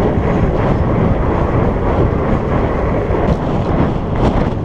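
Strong wind buffeting the microphone of a moving fat bike, a dense, steady low rumble. Underneath it is the hum of 4.8-inch Surly Knard tyres rolling on pavement.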